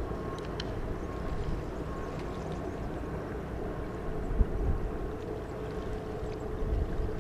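Steady distant engine rumble with a faint steady hum, and wind buffeting the microphone in gusts, strongest about four and a half seconds in.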